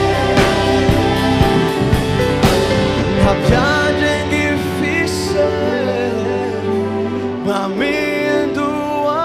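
Live gospel worship band playing an interlude without words. The drums and bass drop out about three and a half seconds in, leaving held chords with a gliding melody line over them.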